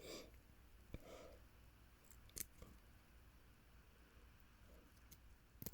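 Faint clicks of a black nylon zip tie being handled and threaded: a few scattered ticks, then a quick run of clicks near the end as its locking side catches.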